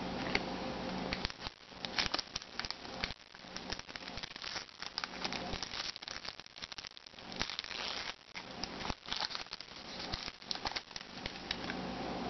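A foil trading-card pack crinkling and tearing as it is ripped open by hand, heard as a run of irregular, crackly rustles.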